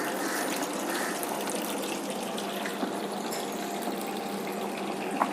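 Water running steadily into an aquarium tank as it is refilled, with a steady low hum underneath.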